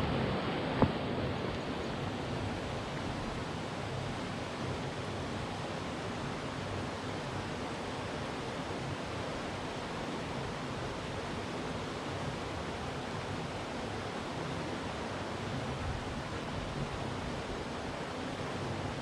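Steady rush of flowing mountain-stream water, with a single sharp click about a second in.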